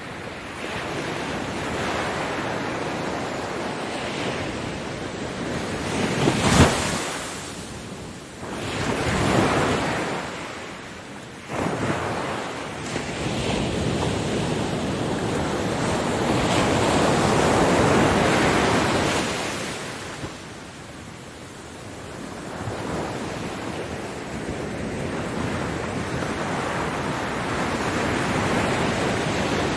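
Ocean surf: waves breaking and washing in, swelling and fading every few seconds, with one sharp crash about six seconds in the loudest moment.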